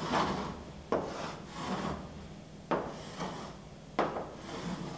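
Chalk drawing straight lines on a chalkboard: four strokes, each starting with a sharp tap as the chalk meets the board and trailing off in a scratchy rub along the line.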